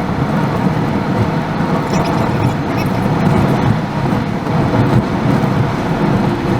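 Steady rumble of a car driving on the road: engine and tyre noise, heard as a dense, continuous low drone.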